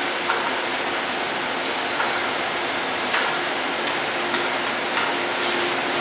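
Steady hiss and hum of an electric train standing at a covered station platform, its auxiliary equipment running, with a faint on-and-off hum and a few light clicks.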